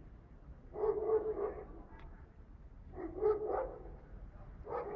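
A dog barking in drawn-out calls, three times about two seconds apart.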